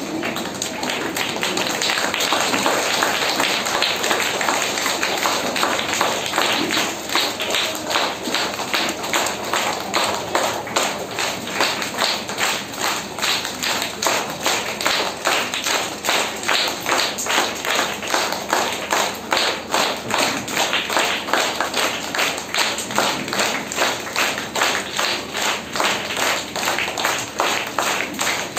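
A crowd applauding, the scattered applause settling after a few seconds into steady rhythmic clapping in unison.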